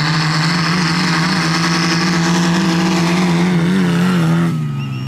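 Tractor diesel engine running flat out with a steady pitch, pulling in a hill drag race. About four and a half seconds in the sound drops away and the engine note fades.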